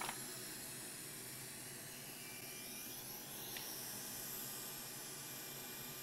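Hot-air rework station blowing with a steady hiss as the nozzle is brought over the chip to heat it for desoldering.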